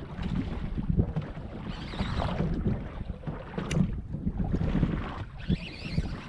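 Wind buffeting the microphone over water lapping against a small fishing boat's hull, with hissier rushes about two seconds in and again near the end.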